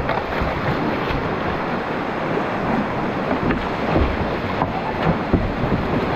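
Whitewater of a steep creek rushing steadily.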